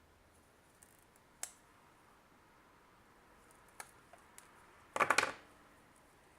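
Light clicks and taps from handling wire and small plastic parts: a couple of single clicks, then a quick rattle of four or five clicks about five seconds in.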